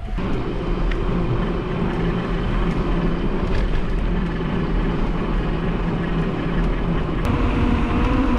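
Bicycle rolling fast on asphalt: a steady rushing noise with a low hum from the tyres on the road surface. The hum shifts slightly in pitch about seven seconds in.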